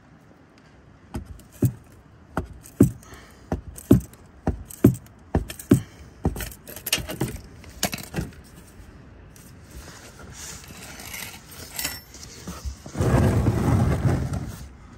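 A series of sharp metallic clicks and knocks, about two a second for several seconds, from work with metal parts under the car. Near the end comes a brief, louder scraping rustle.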